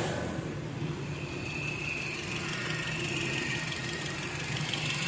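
Toyota Corolla GLI's four-cylinder engine idling steadily, the car having an intermittent misfire with code P0354, an ignition coil 4 circuit fault that the mechanic puts down to wiring rather than the coil.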